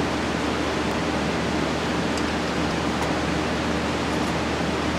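Steady, even rushing background noise, with a few faint small metallic clicks as bolts are handled at the driveshaft flange.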